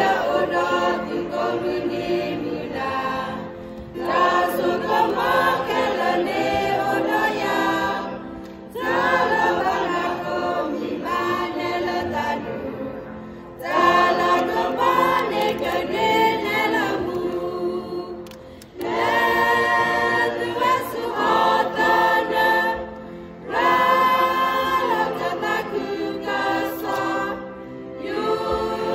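Mixed choir of men and women singing unaccompanied, in phrases of about four to five seconds with a short breath between each.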